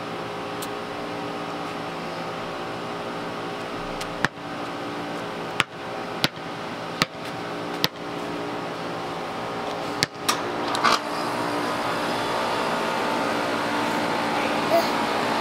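Steady machine hum of outdoor air-conditioning condenser units running. A series of sharp clicks falls between about four and eleven seconds in.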